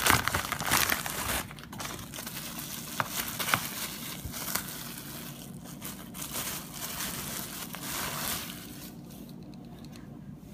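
Packaging being torn open by hand: crinkling, crumpling and tearing, loudest in the first second or so, then quieter rustling with scattered clicks that fades near the end.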